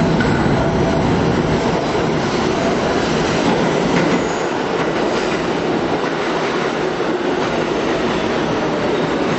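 Subway train pulling into the station along the platform: a steady rumble and rush of steel wheels on the rails, with a faint thin wheel squeal just after the start and again near the end.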